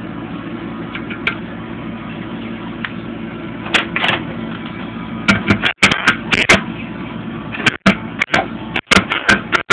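Power wrench spinning off the bolts of a Ford A4LD transmission's front pump, run in short bursts from about four seconds in, over a steady low shop hum.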